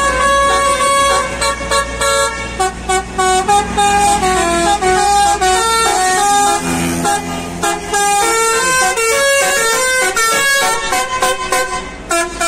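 Coach's multi-tone musical air horn playing a quick tune of stepping notes as the Mercedes-Benz bus pulls out and drives past, with its engine rumbling underneath.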